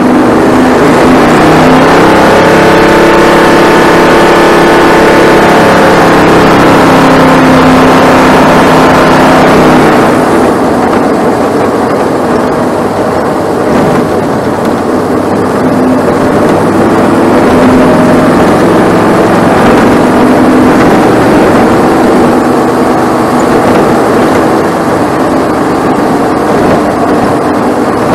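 Bandolero race car's 570cc Briggs & Stratton Vanguard engine heard from on board, running hard down the straight, easing off about ten seconds in, then pulling again.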